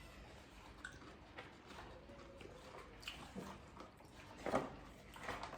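Chewing and soft mouth sounds of eating, picked up close to the microphone, with scattered small clicks and one louder bite or crunch about four and a half seconds in.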